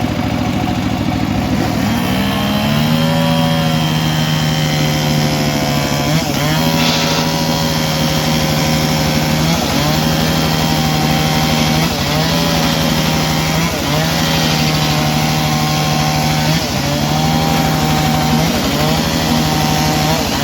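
Circular saw ripping lengthwise through a long teak board, running steadily under load. Its pitch dips briefly every couple of seconds as the blade bogs in the cut, then recovers.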